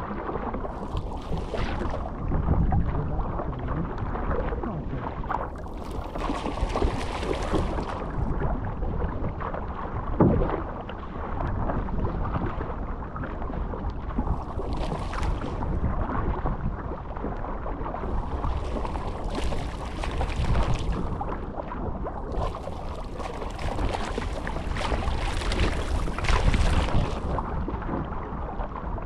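Sea water rushing along a Think Six surfski's hull as it is paddled through choppy water, under a low wind rumble on the microphone. Bursts of hissing spray and wash come every few seconds, the longest near the end.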